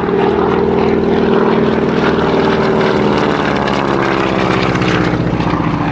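Propeller aircraft engine running loud as the plane flies past, its pitch sliding down partway through as it passes.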